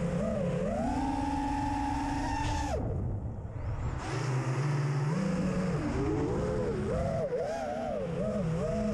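FPV quadcopter's electric motors whining, the pitch rising and falling with the throttle. About three seconds in the whine drops sharply and almost dies away for a second as the throttle is cut, then spools back up.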